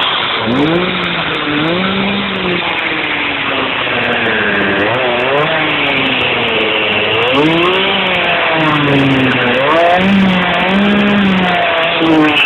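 Two-stroke chainsaw engine fitted to a homemade go-kart, running and revving up and down again and again, a second or two apart, as the throttle pedal is pressed and let off.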